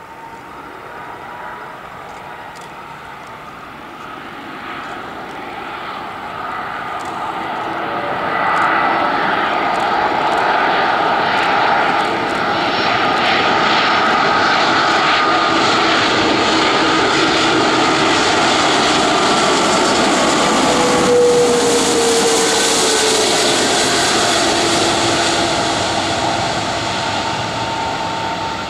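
Airbus A330-200 airliner's twin jet engines on final approach to landing: a rumble with a steady whine that grows louder over the first several seconds as the plane nears. About two-thirds of the way in, as it passes, one whine tone drops in pitch, and the sound eases slightly near the end as it flares over the runway.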